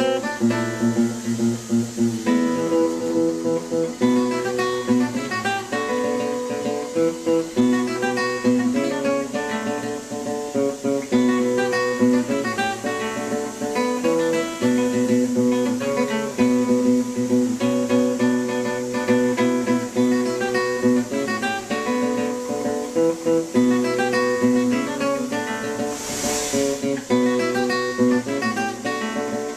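Acoustic guitar music, plucked and strummed, playing throughout. A short burst of hiss comes near the end.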